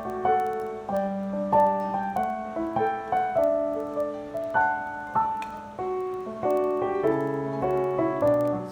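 Roland RD-300NX digital stage piano played with an acoustic grand piano sound: a flowing melodic passage with several notes sounding together over held bass notes.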